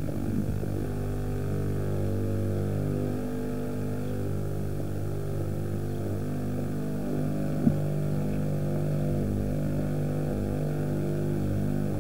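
A vehicle's engine running steadily while driving along a road, its pitch shifting slightly now and then, with one short knock about eight seconds in.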